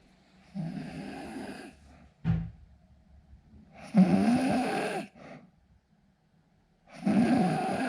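A man snoring in his sleep: three long snores about three seconds apart, each lasting about a second, with a short low thump about two seconds in.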